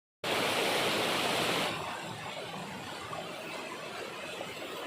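Waterfall water rushing in a steady, even hiss, louder for about the first second and a half and then softer.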